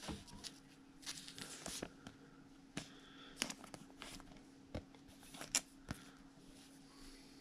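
Trading cards being handled and slid over one another in the hands: soft scattered swishes and a handful of sharper clicks.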